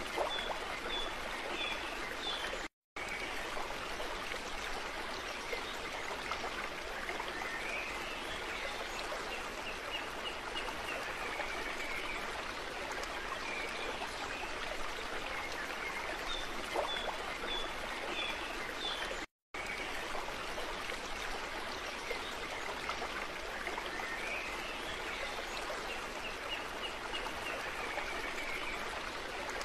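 Steady rush of running stream water with faint short high chirps now and then. The sound cuts out completely for a split second twice.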